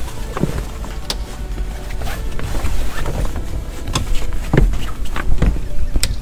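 A canvas boat cover being pulled along a hull and fastened with snaps: several short, sharp clicks among cloth handling, over a steady low wind rumble on the microphone.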